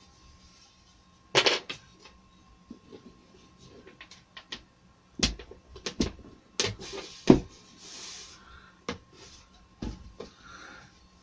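Thin wooden beading strips being handled and pressed into place around a door panel: light clicks and knocks of wood on wood, with a run of sharper taps in the middle and brief scraping of the strips against the frame.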